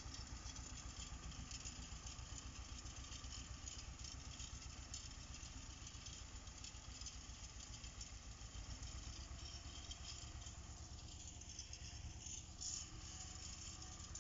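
Władymirec T-25A2 tractor's two-cylinder air-cooled diesel running steadily with a fast, even low chug while it pulls a finger-wheel hay rake.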